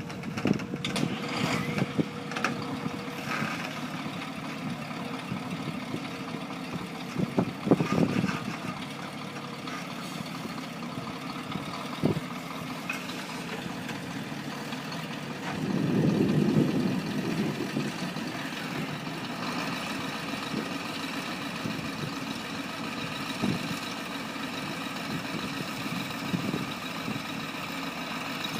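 Heavy construction machine's engine running steadily, with scattered knocks and clanks, a cluster of them about eight seconds in, and a louder surge of engine noise around sixteen seconds.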